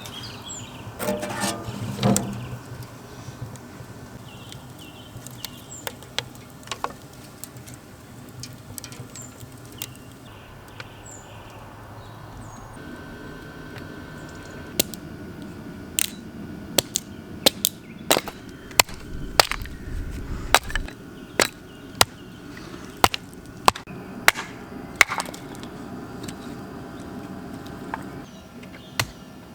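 Chopping: a run of sharp, irregular knocks, roughly two a second, starting about halfway through.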